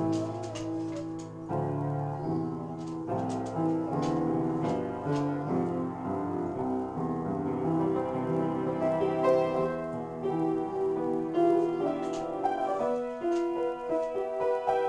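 Upright piano played in an improvised passage of chords and runs of single notes.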